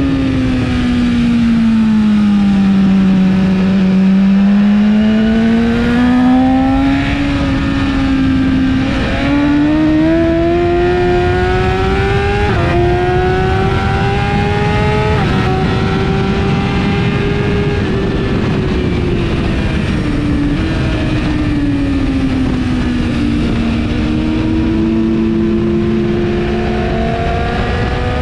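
A 2017 BMW S1000RR's inline-four engine with an Akrapovic exhaust, heard on board at track speed over wind rush. The engine note drops over the first few seconds, then climbs for about ten seconds with a few small jumps in pitch. It eases down again past the middle and climbs once more near the end as the rider works the throttle through the corners.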